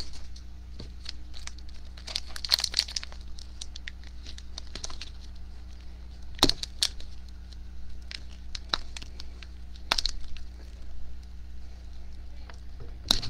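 Plastic wrapper of an Upper Deck Trilogy card pack being picked at and torn open by hand: intermittent crinkling with a few sharper crackles and rips, over a steady low hum.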